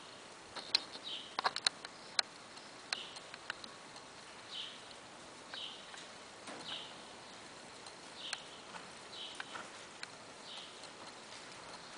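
A young quarter horse being ridden on soft arena dirt: scattered light clicks and taps from hooves and tack, thickest in the first few seconds. A faint high chirp repeats about once a second throughout.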